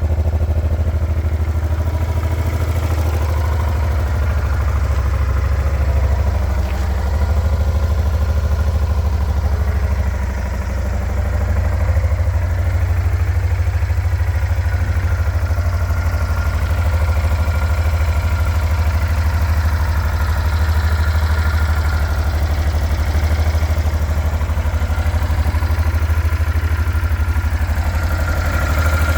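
Honda Transalp 700's V-twin engine idling steadily through its stock exhaust, dipping briefly twice.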